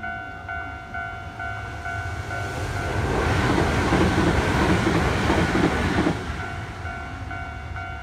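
Japanese level-crossing warning bell dinging at about two strokes a second. A train passes about three seconds in, its loud rumble covering the bell for about three seconds before the bell is heard again.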